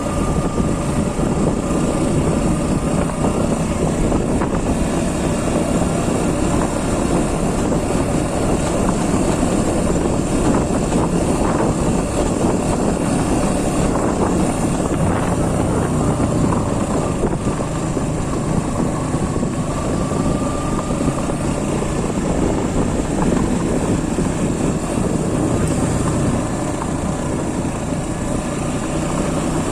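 Motorcycle engine running steadily under way, with a continuous low rumble of wind and road noise.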